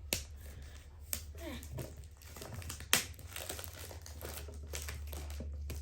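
Packaging being pulled open by hand, crinkling and crackling, with a few sharp snaps; the loudest comes about three seconds in.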